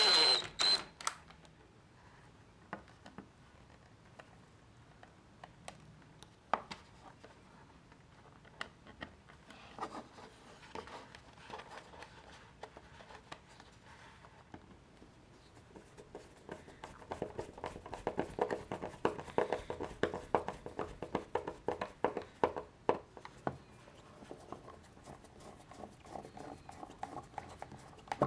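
A power screwdriver driving a trim head screw into wood stops just after the start. Then light knocks of handling, and past the middle a run of sharp, irregular ticks and scraping for several seconds as small screws are turned into a plastic LED driver box with a screwdriver.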